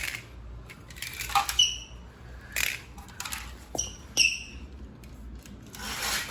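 Carrera slot cars and their plastic track: scattered sharp clicks and knocks, a couple of them with brief high squeaks, over a low steady hum.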